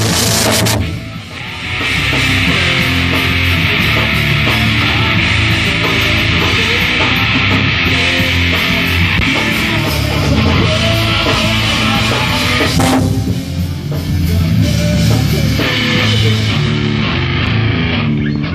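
Live rock band playing loud music, electric guitar over a drum kit. The loudness drops briefly about a second in, then holds steady.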